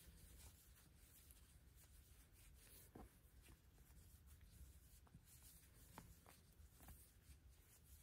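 Near silence with faint rubbing and scattered light ticks of a crochet hook working doubled cotton yarn in half double crochet stitches.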